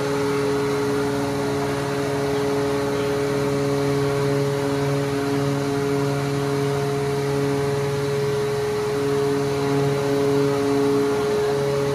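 Electric-driven hydraulic steering-gear pump of a large ship running steadily, a constant mechanical hum with a few steady tones.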